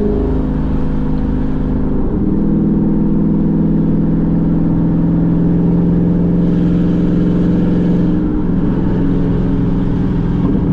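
Chevrolet Camaro SS's V8 engine running under way with road noise. The engine note steps down about two seconds in, holds steady, and changes again near eight seconds.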